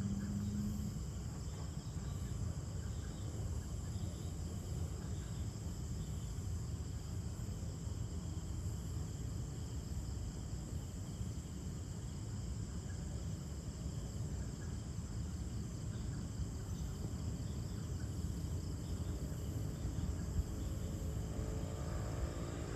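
Evening chorus of crickets trilling steadily over a constant low rumble. Near the end a faint engine sound starts to rise in.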